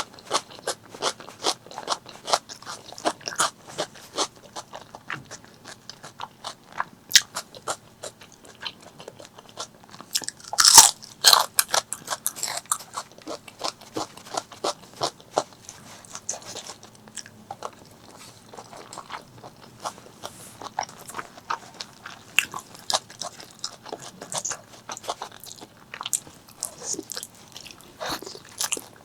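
Close-miked eating of spicy pork leg curry with rice: a steady run of crunchy bites and chewing clicks, with a louder bite about eleven seconds in.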